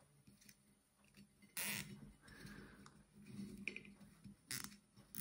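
Electrical tape being pulled off the roll and wound around a T-piece joint on thin irrigation tubing: a short loud rip about one and a half seconds in, another shortly before the end, with quieter rustling and handling between.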